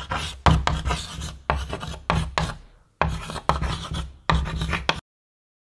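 Chalk writing on a blackboard: a run of quick scratchy strokes with a short pause near the middle, stopping abruptly about five seconds in.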